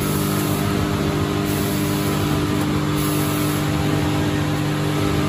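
Steady hum of running packaging machinery, several low held tones with no clear rhythm.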